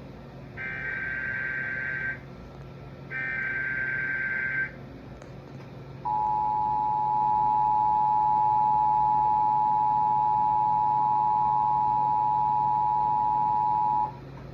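Emergency Alert System broadcast: the last two of three SAME header data bursts, buzzy warbling tones about a second and a half each, then the EAS two-tone attention signal, a steady loud dual tone held for about eight seconds before it cuts off. The header and tone introduce a flash flood warning.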